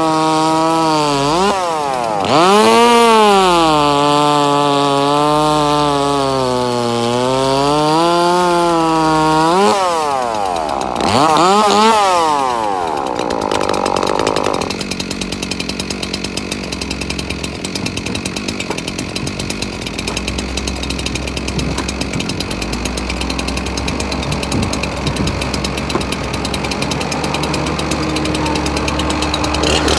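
Husqvarna two-stroke chainsaw revving, its pitch swinging up and down for about twelve seconds, then dropping to a steady idle.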